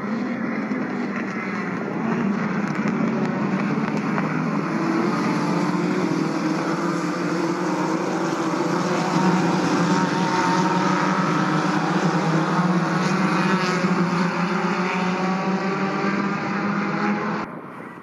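A field of Volkswagen Gol race cars running on the circuit: several engines at high revs at once, their pitches rising and falling as the cars go by. The sound cuts off abruptly near the end.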